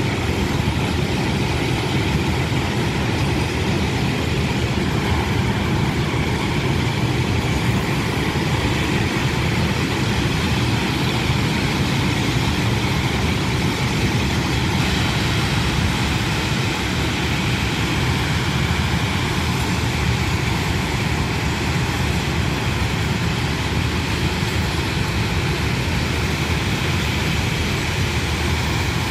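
Freight train of open-top wagons rolling past, a steady, unbroken noise of wheels running on the rails.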